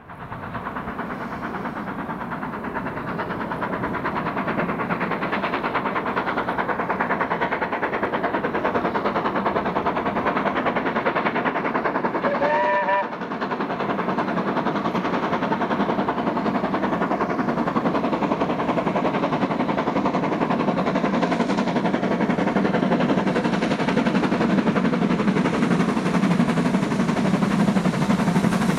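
BR Standard Class 7 steam locomotive 70000 Britannia approaching under steam. Its exhaust is a fast, continuous rush that grows gradually louder, and one short whistle blast sounds a little before halfway through.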